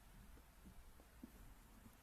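Near silence: a faint low hum of room tone with a few soft, short taps.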